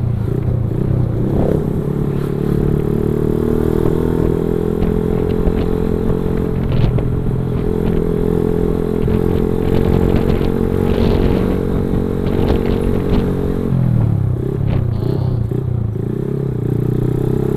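Motorcycle engine running steadily under way. The engine note drops and wavers about fourteen seconds in, then settles again.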